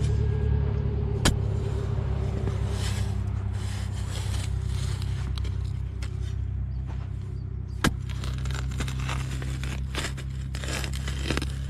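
A shovel cuts and scrapes into sandy, gravelly soil with a few sharp clicks and a run of scraping strokes near the end, over a steady low motor hum.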